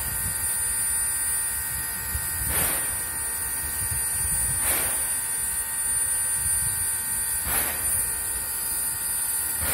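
Baldwin 0-6-0 steam locomotive standing in steam: a steady high whine of several tones over a hiss, with a short puff of steam about every two to three seconds.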